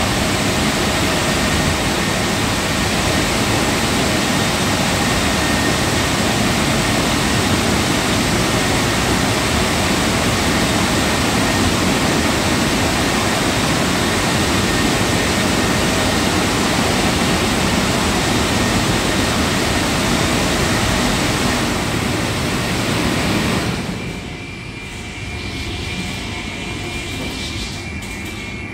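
Automatic car wash dryer blowers running, a loud, steady rush of air during the final drying stage of the wash. About 24 seconds in they shut off, leaving a quieter machine hum with a faint high whine.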